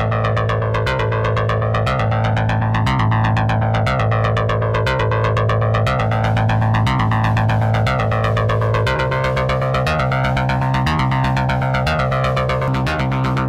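Cherry Audio Octave Cat software synthesizer, an emulation of the 1976 Octave CAT duophonic analog synth, playing a sequencer preset. A low bass note pulses in a repeating pattern under a sweeping effect that rises and falls every couple of seconds. The notes change about nine seconds in.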